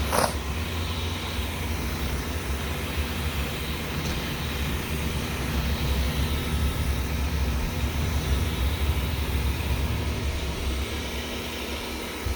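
Wyze robot vacuum running, a steady low hum and whirr, with a brief sharp scrape right at the start.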